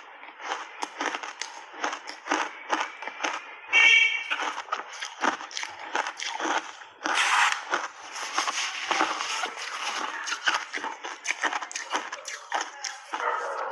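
Close-miked chewing of a frozen ice bar coated in matcha and milk powder: dense, irregular crunching and cracking of ice between the teeth, with a short high squeak about four seconds in.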